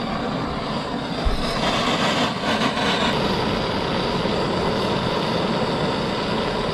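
Gas-cartridge soldering torch burning steadily with an even hiss, heating a copper pipe joint all round so the soft solder flows into the fitting.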